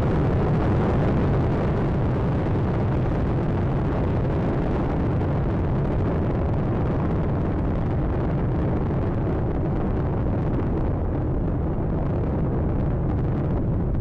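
Space Shuttle Atlantis's solid rocket boosters and three main engines in ascent: a loud, steady rocket rumble that grows duller near the end.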